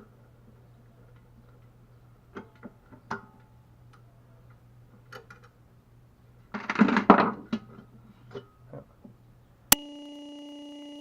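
Scattered small clicks and knocks of parts and tools being handled during chainsaw disassembly, with a louder rattling scrape lasting about a second past the middle. Near the end a sharp click is followed at once by a steady pitched hum.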